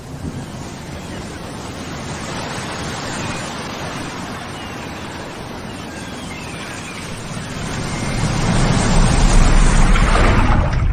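Steady rushing noise that swells into a loud low rumble from about eight seconds in, then cuts off abruptly just before the end.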